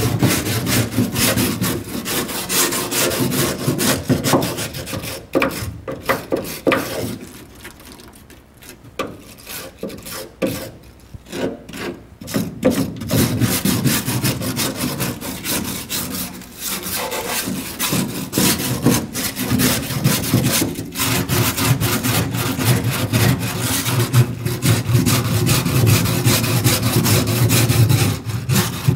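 Hand wire brush scrubbing a car's floor pan in quick back-and-forth strokes, scratching off loose old material. The scrubbing pauses briefly a few times and eases off for a stretch about a quarter of the way in.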